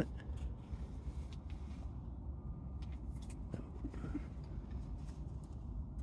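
Wood fire burning in a small tent wood stove, with scattered faint crackles and clicks over a low steady rumble. The fire is smoky, burning pine and leaking smoke from the stove's top plate.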